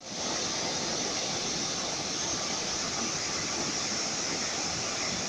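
Water rushing over a waterfall or rapids: a steady, even hiss that fades in at the very start.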